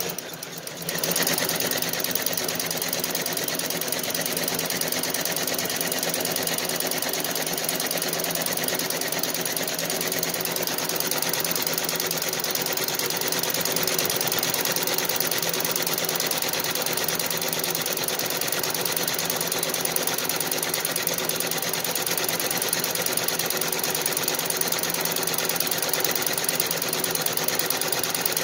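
Feiyue multi-needle embroidery machine stitching a patch, a fast, steady needle clatter that comes up to full speed about a second in.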